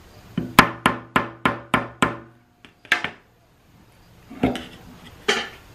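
Quick run of about seven light hammer taps on metal, each ringing briefly, followed by a few scattered knocks.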